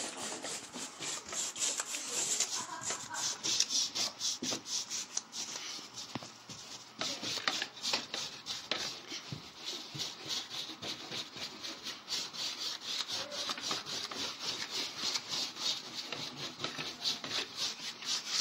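A brush scrubbed rapidly back and forth over a textured drywall patch: a steady run of short, quick rasping strokes.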